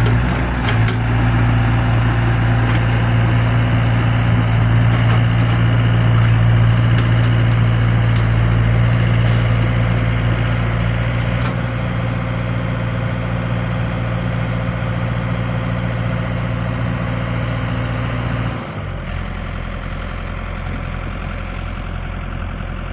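Diesel engine of heavy earth-moving equipment running steadily with a deep hum. About eighteen and a half seconds in, the strongest part of the hum drops away suddenly, leaving a quieter engine note.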